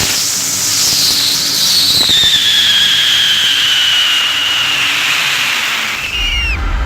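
A loud, high-pitched motor whine over rushing air, climbing briefly and then falling slowly in pitch. Music comes in near the end.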